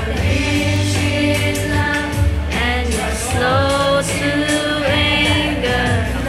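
A group of children singing a gospel song together over a recorded backing track with a steady beat and bass.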